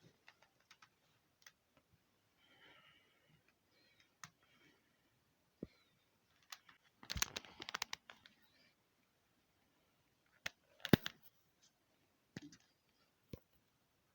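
Scattered sharp clicks and crackles, with a dense run of rapid clicks about seven seconds in and another sharp cluster about eleven seconds in.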